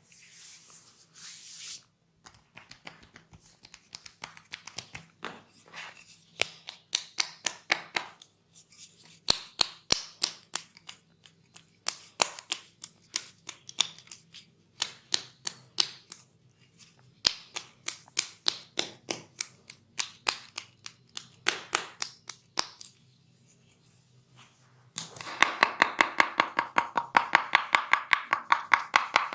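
Hands striking the body in a percussive massage: irregular runs of sharp slaps and pats, then near the end a fast, steady drumming of chopping strokes, several a second.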